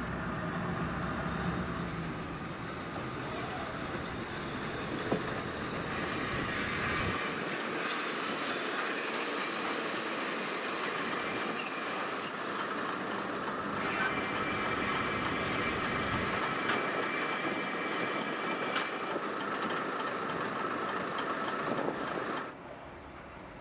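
A Kominato Railway diesel train running along the track, with short high wheel squeals on the rails partway through. The sound drops away suddenly near the end.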